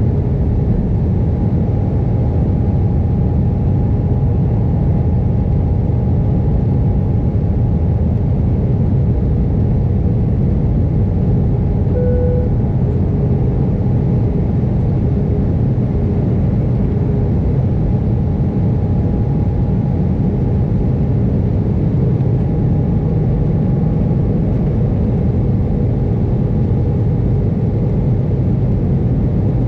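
Steady engine and airflow drone inside the cabin of an Airbus A320 descending to land, heard from a window seat over the wing, with a faint steady whine above the low roar. A brief short tone sounds about twelve seconds in.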